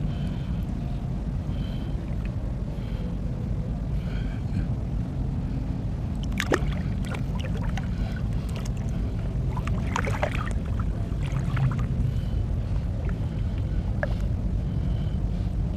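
Shallow seawater sloshing and splashing as hands reach in and grope along the sandy seabed, over a steady low rumble. There are sharper splashes and clicks about six seconds in and again around ten to eleven seconds.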